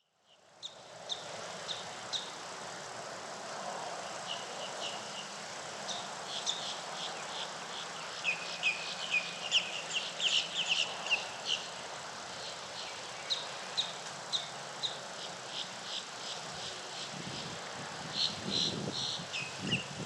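Birds chirping: many short, high chirps, thickest around the middle, over a steady outdoor hiss. A low rumble comes in near the end.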